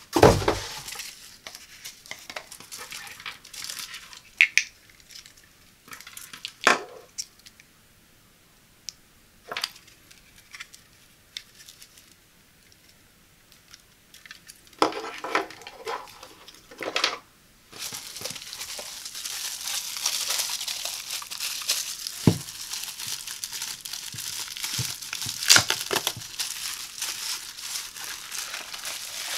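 Unboxing handling noise with no speech. A loud thump comes right at the start, followed by scattered taps and rustles of packaging and a plastic-wrapped power adapter. From about two-thirds of the way through, there is steady crinkling of the bubble wrap around a digital postal scale as it is lifted and turned.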